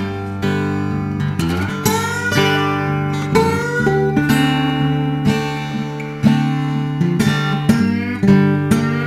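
Acoustic blues guitar played with a slide: plucked notes and strums with gliding pitches, and no singing.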